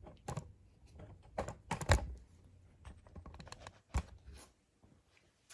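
Irregular clicks and knocks from handling and adjusting an adjustable rear upper control arm, with heavier knocks about two seconds in and about four seconds in.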